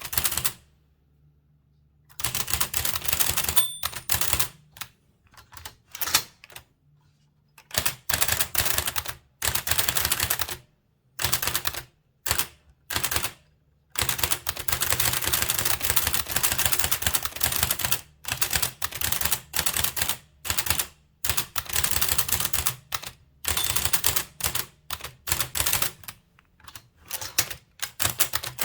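Blickensderfer typewriter being typed on: runs of rapid, sharp key and type-cylinder strikes, each run broken by a short pause.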